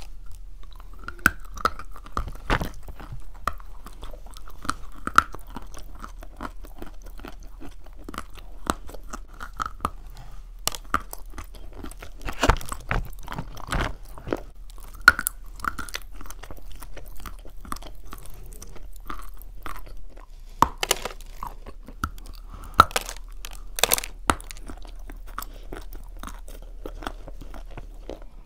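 Crunching and chewing of lumps of chalk and clay, a dense run of small sharp crunches with a few louder cracks, picked up close to the mouth.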